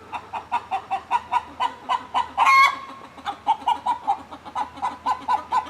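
Hens clucking in a quick, steady run of short clucks, about four or five a second, with one longer, louder squawk about two and a half seconds in. It is the sound of hens squabbling over an occupied nesting box.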